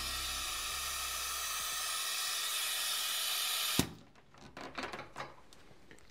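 Compressed air hissing steadily through a 3D-printed venturi jet siphon (eductor) that is sucking leftover oil out of the engine's cylinders, cut off suddenly with a click about four seconds in, followed by a few light handling knocks.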